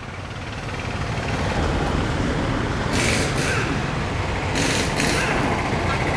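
A heavy road vehicle passing close by: a low engine-and-road rumble swells over the first two seconds and then holds steady, with short hisses about three seconds in and again near five seconds.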